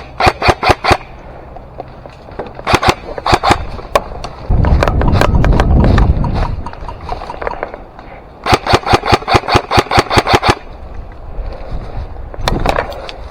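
Airsoft guns firing rapid bursts of BBs, about ten shots a second: a short burst at the start, another around three seconds in, and a long burst of about twenty shots near the middle. A loud low rumble sits between the bursts.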